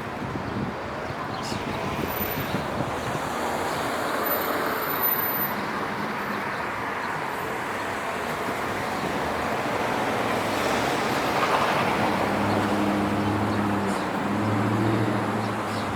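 City street traffic: a steady wash of road noise with vehicles passing, swelling twice as they go by. Near the end a low, steady engine hum joins in.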